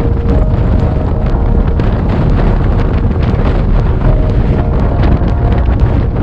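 Strong storm wind of about 40 knots buffeting the microphone: a loud, steady low rumble with many short crackles.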